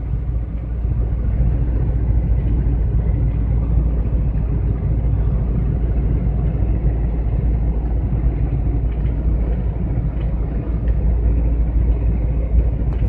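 Steady low rumble of engine and road noise inside the cab of a GAZelle van driving at highway speed.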